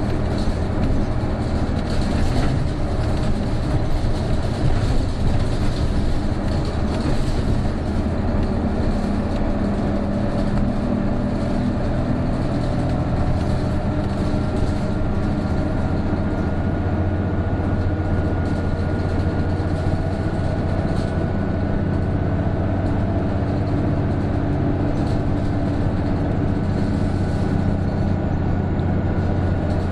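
Isuzu Erga PJ-KV234L1 route bus's turbo diesel engine running under load, heard from inside the cabin. About halfway through, a thin whine comes in and slowly rises in pitch: the odd noise this bus is known for once the turbo comes in above about 1300 rpm.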